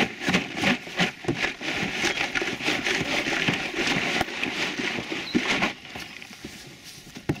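Boiled crawfish rattling and sliding around inside a closed plastic ice chest as it is shaken to coat them with seasoning. The shaking stops about six seconds in, and a single sharp knock comes near the end.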